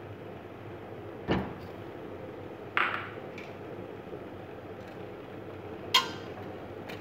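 Three separate knocks against a stainless steel saucepan as butter is dropped in from a plate and a wire whisk goes in. The last is a sharp, ringing metal clink. A steady low hiss runs underneath.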